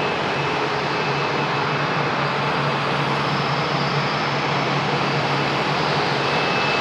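Jet airliner on final approach, its engines making a steady rushing noise with a faint high whine.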